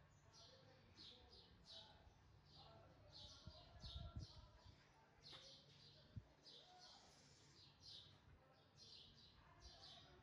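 Near silence, with faint high bird chirps repeating about twice a second and a couple of soft low thumps, around four and six seconds in.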